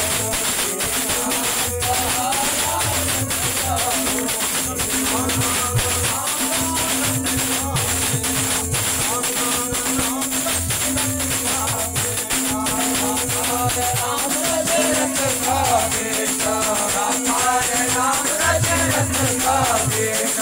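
Hindu devotional bhajan-kirtan music: a wavering sung melody over a held steady tone, with a drum beating in repeated pulses and jingling tambourine-like percussion throughout. The singing grows stronger in the last several seconds.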